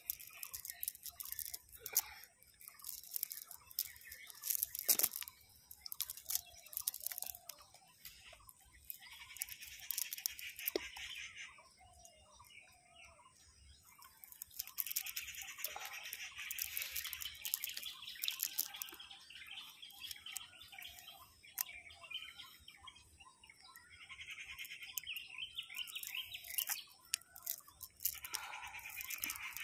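Cast net being handled and shaken by hand over dry ground to free small fish and shrimp caught in it. The nylon mesh rustles, dry leaves crunch, and the lead sinkers knock together in scattered sharp clicks.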